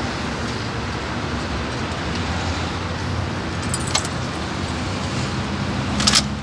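Steady low traffic rumble, with a click about four seconds in as the glass lid of a drinks cooler is opened, then a brief clatter of glass bottles clinking together near the end.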